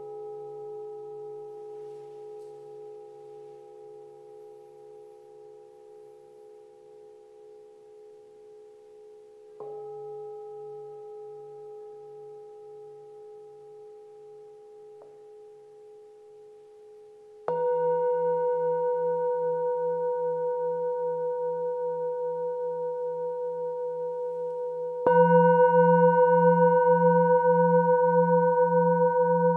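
Metal singing bowls struck with a wooden mallet, one strike about every eight seconds, each ringing on long with a slow wavering pulse in its low tone. Three strikes, each louder than the one before, over the ring of an earlier strike.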